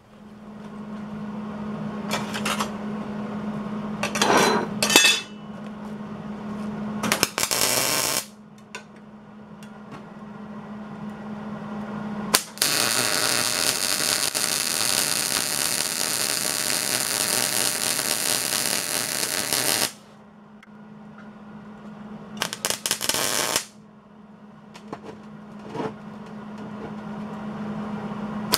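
MIG welding arc laying a bead to build up broken gear teeth on a gear preheated to around 600 degrees: a steady, crackling hiss for about seven seconds from about halfway through, with short bursts of arc a few seconds before it and again near the end. A few knocks come early on, and a steady low hum runs between the welds.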